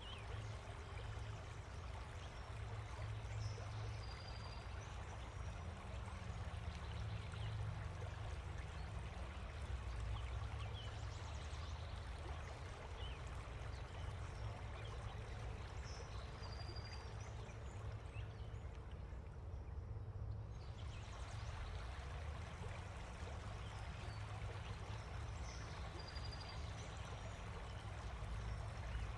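Steady outdoor ambient noise: an even rushing hiss over a low rumble, with a few faint, short high chirps.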